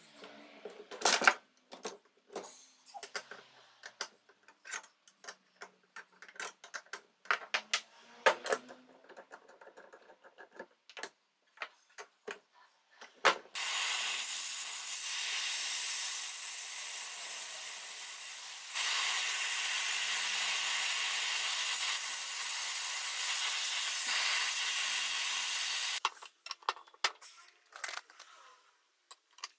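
Small hard objects clinking, tapping and knocking as they are handled, then a steady hiss that lasts about twelve seconds and steps louder partway through, then a few more clinks.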